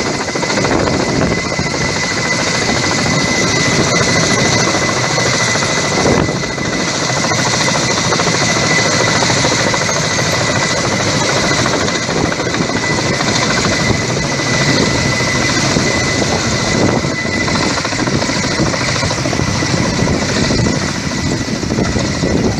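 Firefighting helicopter with a coaxial-rotor Kamov build hovering low over the sea to fill its slung water bucket: steady rotor and turbine noise with a thin, steady high whine.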